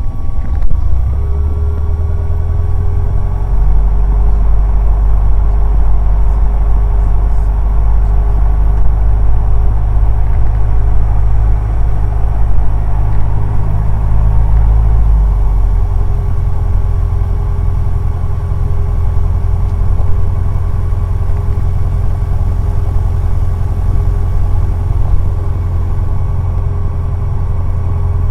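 Cessna 150's four-cylinder Continental O-200 engine droning steadily in the cockpit, heard as a loud low rumble. The drone changes character about four seconds in and again about halfway through.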